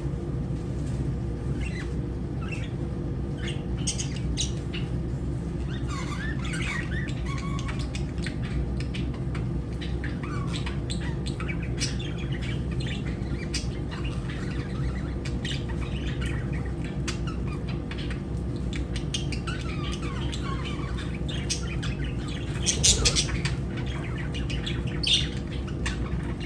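Lovebirds chirping and squawking: a running string of short, sharp chirps with stretches of warbling chatter, and a louder burst of squawks about 23 seconds in. A steady low hum runs underneath.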